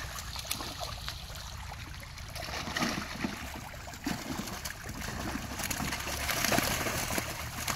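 Water splashing and churning as pangasius catfish thrash in a crowded seine net at the pond's edge, louder about three seconds in and again near the end.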